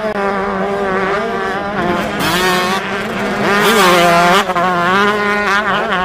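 Motocross bike engine revving hard, the pitch rising and falling repeatedly with the throttle.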